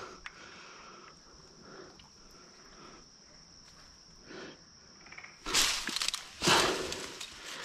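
A steady high drone of night insects, with faint rustling, then two loud bursts of crashing and rustling in dense brush about two thirds of the way in as a frog gig is jabbed into the bushes at a toad.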